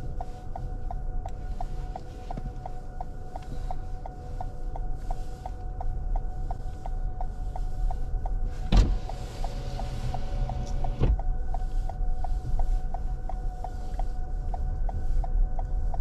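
2021 Toyota RAV4 Hybrid driving slowly up a snow-covered road, heard inside the cabin as a steady low rumble of tyres on snow, with a faint tone pulsing about two and a half times a second. About nine seconds in, a click starts a two-second hiss with a thin whine, which ends with another click.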